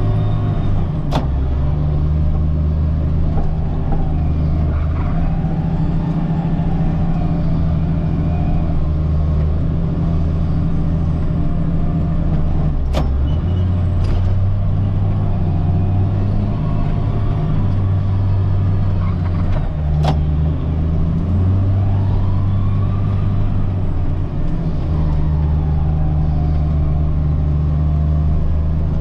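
Caterpillar 938G wheel loader's diesel engine running as it pushes snow, its pitch stepping up and down with the load. A faint whine rises and falls a few times, and there are a few sharp clicks.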